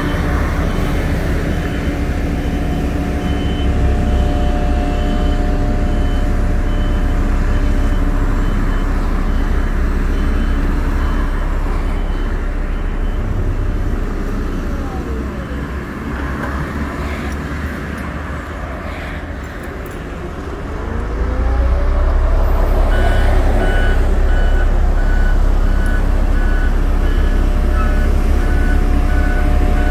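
Heavy diesel truck engine running, with reversing alarms beeping in a steady repeating pattern. The engine eases off for a few seconds past the middle and then picks up again. The beeping pauses midway and returns near the end, when a second, lower-pitched beeper joins in.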